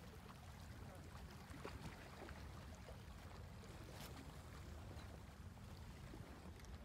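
Quiet outdoor ambience: a faint steady low rumble under a light hiss, with a few small ticks.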